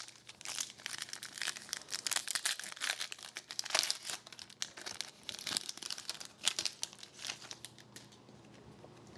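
Foil wrapper of a hockey card pack crinkling and tearing as it is opened by hand, in a dense run of irregular crackles that thins out near the end.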